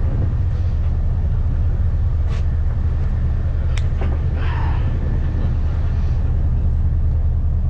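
Steady low rumble of a charter fishing boat's engine running, with a couple of sharp clicks a few seconds in.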